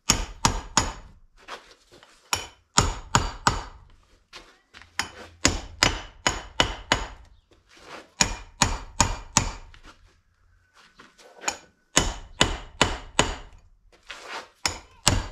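Hammer striking steel, driving a new outer bearing race into a wagon wheel hub with the old race as a driver. Sharp metallic blows in quick runs of two to four, each with a brief ring, with a short pause about ten seconds in.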